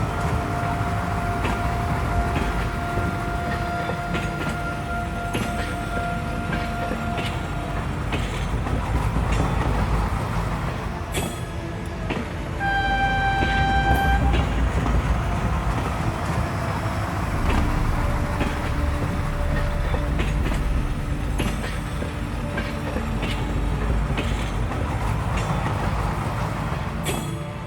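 Train running with a steady rumble, a horn sounding once for about a second and a half about 13 seconds in.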